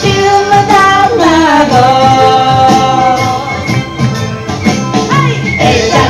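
Bon odori festival music from the projected video, played over the hall's speakers: a singer holding long notes that slide down about a second in and up again near the end, over a rhythmic backing.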